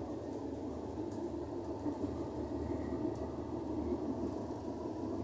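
Steady rumble of a moving passenger train heard from inside a medium-distance (Media Distanza) coach, running along the track, with a few faint clicks.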